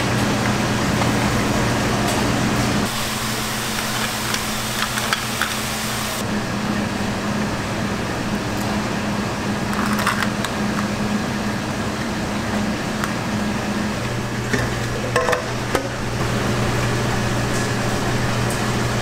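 Steady hum of an exhaust fan over the hiss and sizzle of shellfish grilling on a coal-briquette fire, with a few light clinks of metal tongs or utensils.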